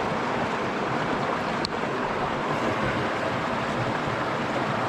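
River water rushing steadily over a natural dam, with a faint click about two seconds in.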